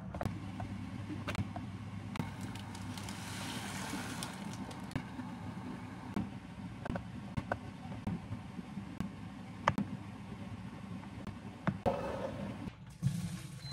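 Kitchen prep sounds: scattered knocks and taps of a knife cutting cheese on a wooden cutting board and of a wooden spoon in a steel saucepan, over a low steady hum.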